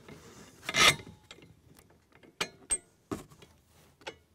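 Aluminium parts and steel bolt hardware of a log jack clinking and knocking as a platform foot is fitted and a nut is started onto its carriage bolt. A loud rattling clatter comes just under a second in, then a few sharp separate clicks.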